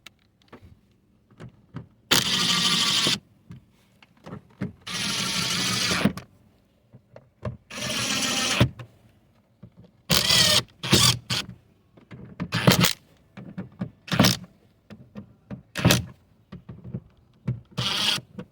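Cordless power driver run in short trigger bursts: three of about a second each, then a quicker run of shorter blips, as fasteners are driven on a car door.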